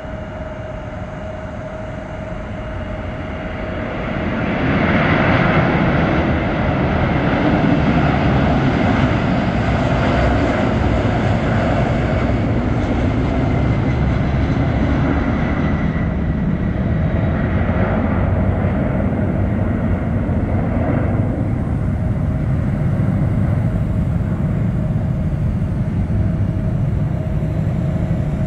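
McDonnell Douglas MD-11F freighter's three jet engines at takeoff thrust: a dense rushing engine noise that swells about four seconds in as the aircraft lifts off, then holds as a heavy rumble while it climbs away.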